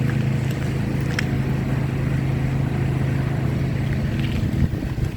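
Steady low engine hum of a nearby motor vehicle, with wind noise on the microphone; the hum falls away about four and a half seconds in.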